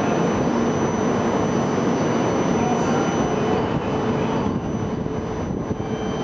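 E4 series Shinkansen standing at the platform with its onboard equipment running: a steady whooshing hum with a few faint steady tones, easing slightly about four and a half seconds in.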